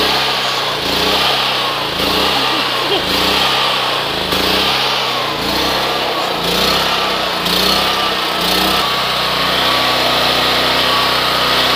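Portable generator's small engine running just after a cold start, its speed surging up and down about once a second. About nine seconds in it settles into a steady run.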